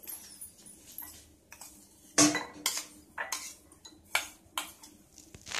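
Steel spoon stirring thick curd with chopped cucumber and onion in a plastic bowl, clinking and scraping against the bowl in irregular strokes, the loudest about two seconds in.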